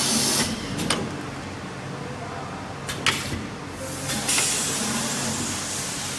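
Pneumatic edge-curling machine for round cardboard boxes cycling: a burst of compressed-air hiss at the start, a sharp click about a second in, two clacks about three seconds in as the rolling head comes down onto the box, and another hiss about four seconds in as it lifts, over a steady machine hum.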